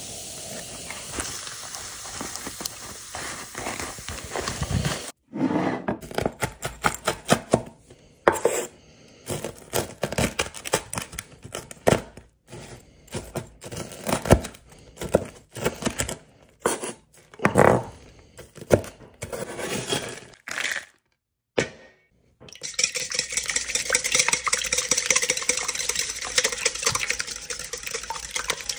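Kitchen cooking sounds: food sizzling in a pan, then a run of clinks, knocks and scrapes of utensils against pans and dishes, broken by several short silent cuts, and steady sizzling again in the last few seconds.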